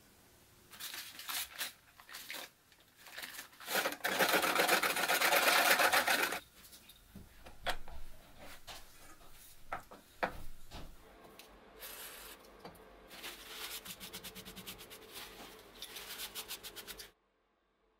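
Hand rubbing a small printed circuit board against a workbench in rapid back-and-forth strokes, amid light handling knocks. A loud steady hiss lasts about two seconds, starting about four seconds in. The rubbing cuts off suddenly near the end.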